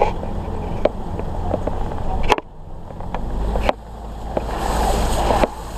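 A vehicle driving over snow, heard from inside the cab: a steady low rumble with scattered knocks and clicks. The rumble drops away abruptly about two and a half seconds in, then comes back a second or so later.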